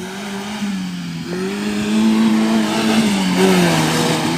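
Vehicle engine working hard on an offroad trail, its pitch rising and falling as the throttle is opened and eased.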